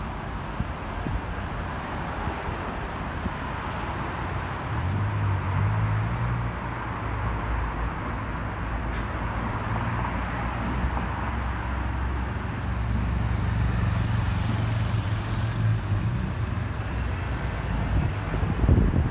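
Street traffic: cars passing on the road. A low steady hum joins in about five seconds in and fades out around sixteen seconds.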